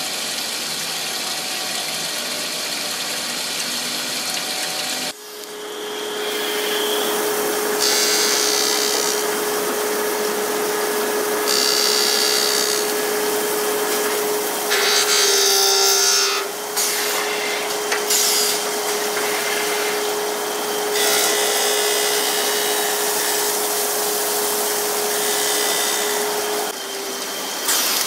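CNC glass corner grinding machine at work. At first there is an even machine noise. About five seconds in, the grinding spindle's steady whine takes over, and it is broken several times by bursts of harsh hissing as the wet grinding wheel takes glass off the corners.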